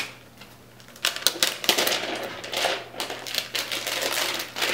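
Thin plastic wrapping crinkling and crackling as a tablet is handled and slid out of its protective plastic sleeve. The crinkling starts about a second in as a dense run of small, irregular crackles.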